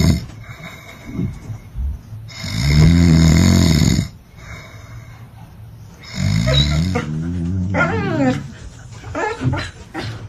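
A person snoring loudly in long snores about two seconds each, twice, with a border collie's vocal noises mixed in over the second snore.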